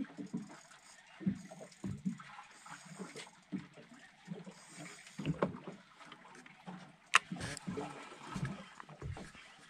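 Small fishing boat at sea: water slapping against the hull with irregular soft knocks and thumps, and one sharp click about seven seconds in.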